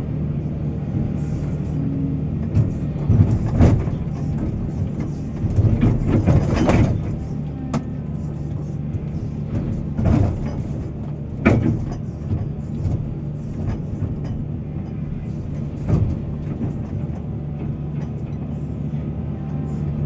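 Heavy excavator's diesel engine running at a steady pitch, with several loud bangs and rushes of material during loading, the longest about six seconds in.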